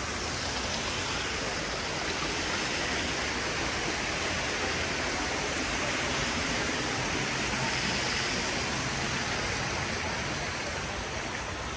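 Water from a stone garden fountain splashing and running: a steady rush with no breaks.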